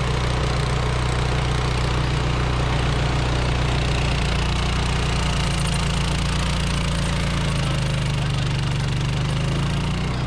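Mitsubishi engine of an OREC Bull Mower HRC664 crawler flail mower running steadily under load as the machine mows grass.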